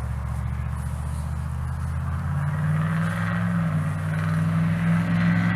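A motor vehicle's engine running, growing steadily louder, its pitch rising slightly about halfway through.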